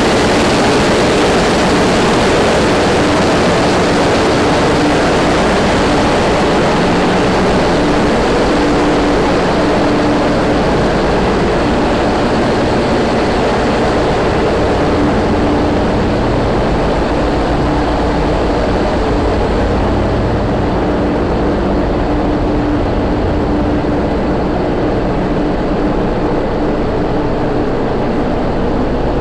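Heavy machinery running steadily: a loud, even drone with a constant hum, its hiss thinning a little about halfway through.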